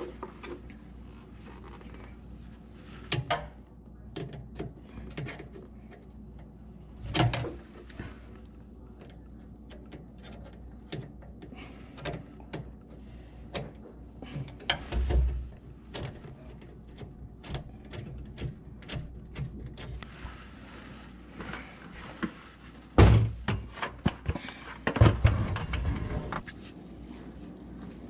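Scattered clicks, knocks and thuds of hands working among the plastic drain pipes and wooden cabinet under a kitchen sink, with a few heavier thumps and the loudest clunks near the end.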